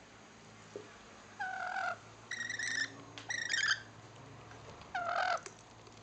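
Rainbow lorikeets giving four short calls while feeding. The second and third are higher and raspy; the first and last are lower and dip slightly in pitch.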